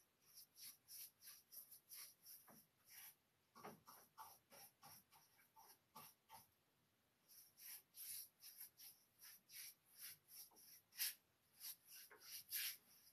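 Faint paintbrush strokes on a painted wooden chest side: a quick run of soft, scratchy swishes, two or three a second, with a short pause about six and a half seconds in, as a clear sealing wax top coat is brushed on.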